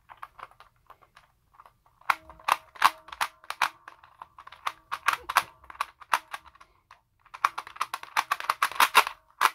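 Dials of a Lingao Rubik's Clock being turned by thumb, giving quick runs of small plastic clicks in three spells, with a little spring noise ringing faintly under them. The dials are a bit locky and catch as they turn.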